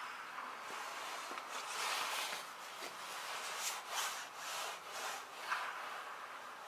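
Indoor batting-practice ambience: a continuous rustling, scuffing background noise with one sharp knock about five and a half seconds in.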